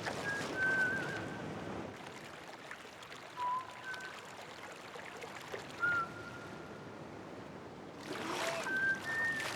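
Water lapping and sloshing, with a few short, scattered whistle-like notes over it and louder splashing near the end.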